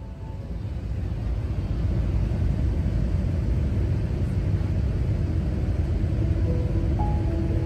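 Steady rumble of a jet airliner heard from inside the cabin: engine and airflow noise, swelling over the first two seconds and then holding. A few soft music notes come in near the end.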